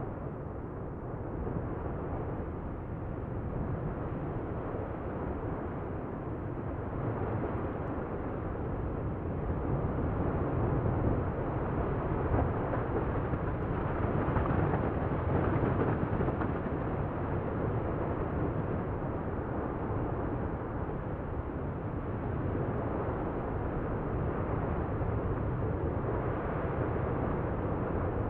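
Lava fountaining from an erupting volcanic vent: a continuous low, rushing rumble that swells about halfway through and then eases slightly.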